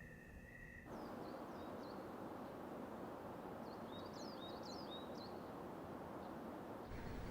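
A faint steady two-note tone cuts off about a second in. It gives way to a soft outdoor hiss in which small birds chirp in two short flurries, the second busier than the first.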